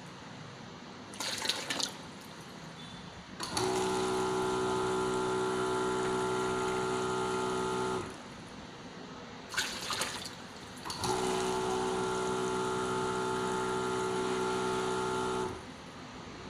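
Liquid filling machine's pump running with a steady whine for about four and a half seconds, twice, each run dispensing a set 220 ml dose of liquid; a short noisy burst comes shortly before each run.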